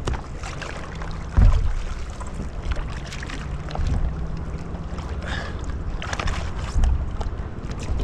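Wind on the microphone and water against the hull of a small boat, with a few light knocks and one dull thump on the boat about one and a half seconds in.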